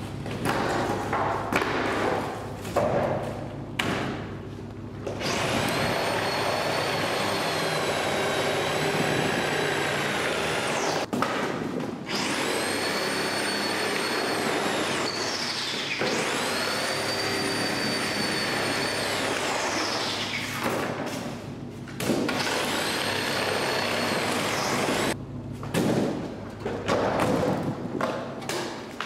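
Power saw with a long blade cutting through sculpture material, a loud, pulsating buzz. The motor comes in short choppy bursts during the first few seconds. Then it makes four long runs, each winding up to a steady high whine, holding for several seconds and winding down.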